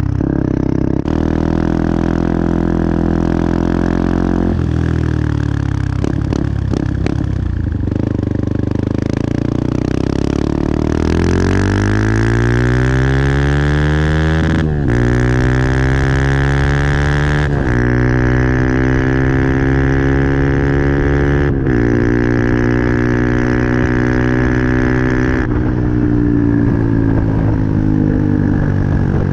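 Benelli TNT 125's single-cylinder four-stroke engine running low with a few short blips, then revving up in a steady rising pitch and held at high revs, broken by brief dips several times.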